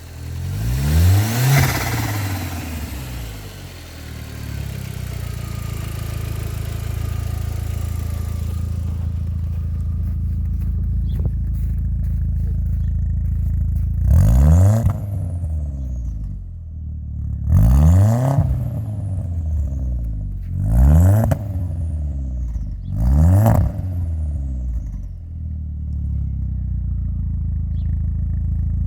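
Audi A4 B5 1.8T 20-valve turbocharged four-cylinder engine idling and revved in five sharp throttle blips: once about a second in, then four spaced a few seconds apart in the second half. After each blip a high turbo whistle falls away and the turbo flutters as the revs drop back to idle.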